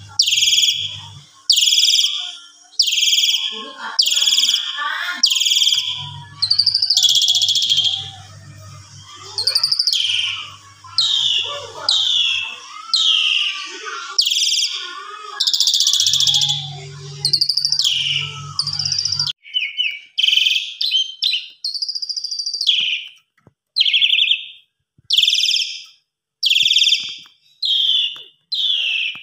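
Caged Asian pied starling (jalak suren) singing hard, a long run of loud, scratchy whistled notes about one a second, each falling in pitch. A low hum sits under parts of the first two-thirds. After that the notes come shorter and more clipped with brief gaps between them.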